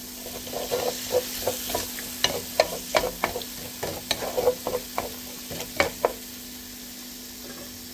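Spatula stirring and scraping sliced onions and salsa around a nonstick frying pan as they sizzle in oil. A quick run of scrapes and taps stops about six seconds in, leaving only the steady sizzle.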